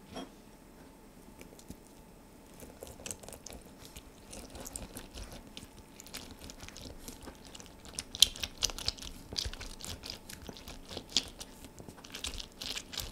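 Half a lemon being pressed and twisted on a ceramic juicer: wet, crackling squelches of the pulp and juice. They come irregularly and grow denser and louder from about the middle.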